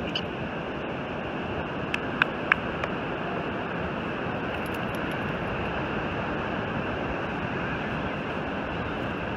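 Steady rush of ocean surf and wind on an open beach, with a few sharp clicks about two to three seconds in.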